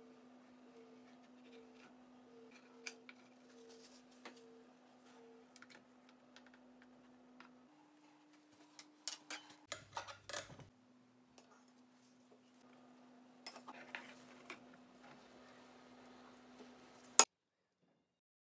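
Light clicks and taps of kitchen utensils against a metal baking tray and dish, scattered and faint, with a busier run of taps in the middle and one sharp click near the end. A low steady hum sits beneath.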